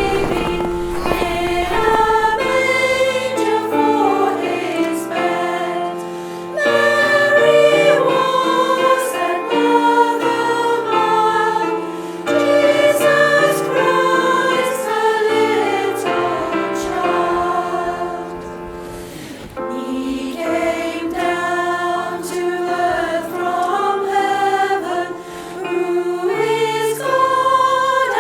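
Women's choir singing in parts, phrase after phrase, with brief pauses between phrases.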